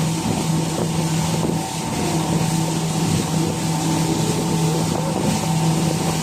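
Motorboat engine running steadily with a constant hum, with wind and water rushing past.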